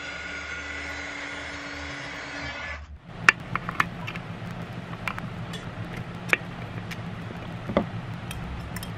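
A steady whirring hum for about the first three seconds, which cuts off abruptly. Then a scatter of sharp clicks and knocks as an industrial foot switch's metal housing is handled, its cover screws undone with a screwdriver and the cover lifted off.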